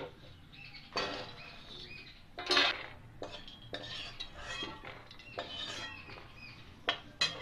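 A spatula scraping and knocking against a steel kadai as roasted fox nuts (makhana) are scooped out of it, with a few sharp metallic clinks, the loudest about two and a half seconds in.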